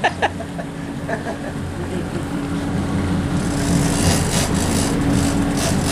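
Boat engine running steadily under the sportfishing boat, with a rush of wind and water noise growing from about halfway.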